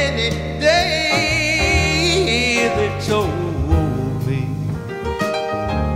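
Male crooner singing a slow jazz-pop ballad over instrumental accompaniment, holding a note with wide vibrato about a second in.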